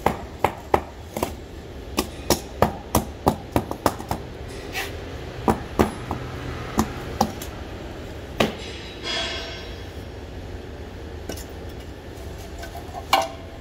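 A quick series of sharp knocks, about a dozen in the first four seconds, then fewer and more spread out, with one more loud knock near the end.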